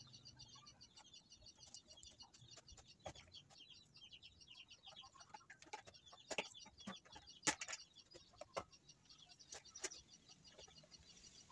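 Faint, scattered clicks and knocks of a rubber welding cable being handled and hung on a steel welding-machine trolley, with a few sharper knocks past the middle. A continuous faint, rapid high chirping runs underneath.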